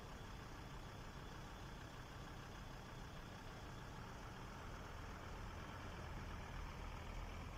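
Low, steady engine rumble of road vehicles, growing slowly louder toward the end.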